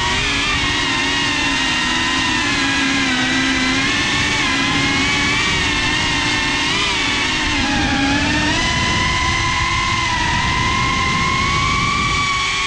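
Four-motor GEPRC CineLog 35 cinewhoop drone with ducted 3.5-inch propellers, its motor and prop whine picked up by its own onboard GoPro, over a rush of air. The pitch shifts with the throttle: it dips a little past the middle, then climbs slowly.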